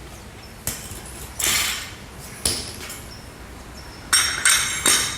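Weight plates clinking and knocking against a barbell as they are handled, about six sharp metallic knocks over several seconds, some ringing briefly.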